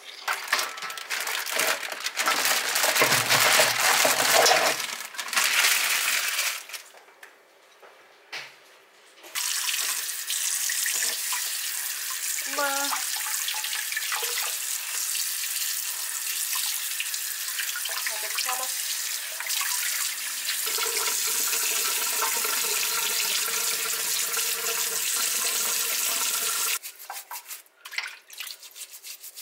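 Kitchen tap running steadily into a stainless steel bowl in the sink, cutting off suddenly near the end. A louder burst of machine noise in the first few seconds comes from an espresso machine pulling a shot.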